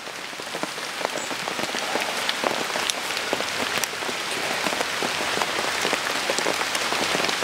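Steady rain falling hard: an even hiss with many small ticks of individual drops.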